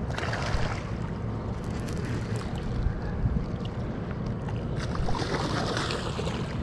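A large hooked longnose gar splashing and thrashing at the surface at the water's edge, once at the start and again near the end, over a steady low rumble.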